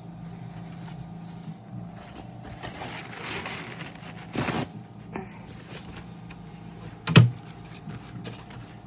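Puppy incubator running with a steady electrical hum, with handling noises: a rush of rustling about three seconds in, a knock a little later, and a sharp, loud knock about seven seconds in.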